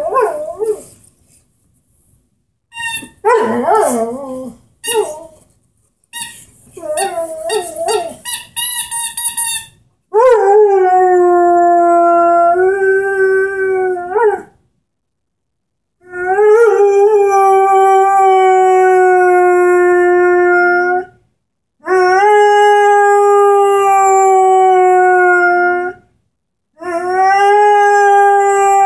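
Young Airedale Terrier howling in four long, steady notes, each lasting several seconds with a brief upward glide at the start, broken by short pauses. The first ten seconds hold shorter, broken sounds before the howls begin.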